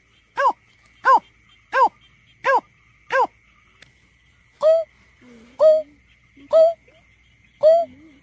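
Greater painted-snipe calling: a series of five short hollow hoots about 0.7 s apart, then after a brief pause four deeper hoots about a second apart. A faint steady high-pitched tone runs underneath.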